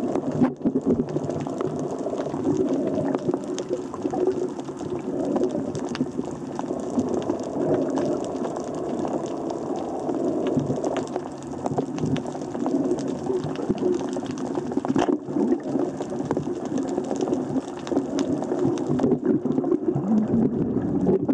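Underwater ambience picked up by a camera in its waterproof housing: a steady low churning of water, with many faint scattered clicks and crackles.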